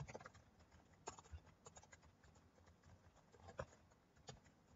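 Faint computer keyboard typing: scattered, irregularly spaced key clicks.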